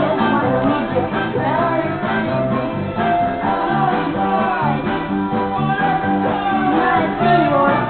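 A young girl singing along to a rock-style song with guitar playing.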